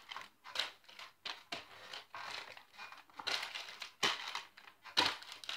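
Wrapping paper on a gift-wrapped present crinkling and rustling in irregular sharp bursts as the present is passed quickly from hand to hand.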